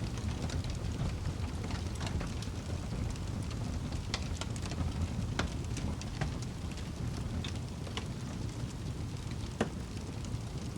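Wood fire burning in a fireplace: a steady low rumble of flames with irregular crackles and pops, the sharpest pop near the end.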